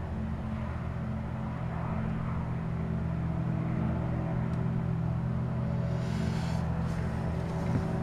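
Steady low industrial hum made of several held low tones, which the uploader blames on the ALCOA aluminium plant at Massena West. A brief faint hiss joins it about six seconds in.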